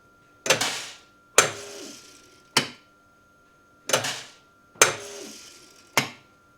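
Sharp knocks and clanks with a short ring after each, six of them at uneven intervals about a second apart, from grain moisture-testing gear being handled during a moisture test. A faint steady high tone sounds underneath.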